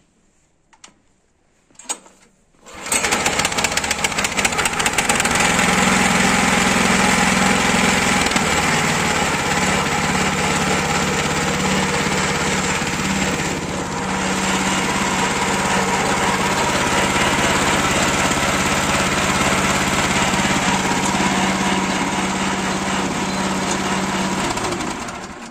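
Lifan single-cylinder petrol engine on a mini-tractor, running with its air filter removed: it starts about three seconds in, runs steadily and loudly, and is switched off shortly before the end, winding down over half a second.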